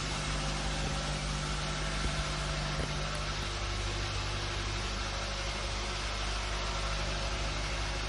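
A machine running steadily: a constant low hum with a broad hiss over it, and a faint tick or two.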